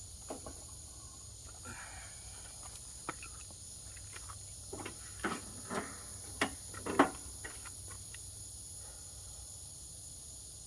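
Scattered clicks and knocks of tools and parts being handled on a riding mower, bunched together around the middle with the loudest knock about seven seconds in. A steady high insect drone of crickets runs underneath.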